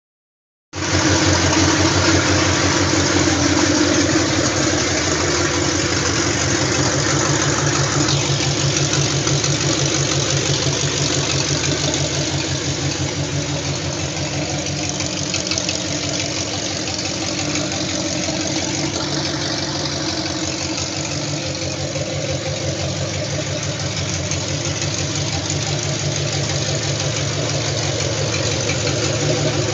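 540-cubic-inch big-block Chevy V8, a stroked Gen VI ZZ502, idling steadily with an even, rapid pulse.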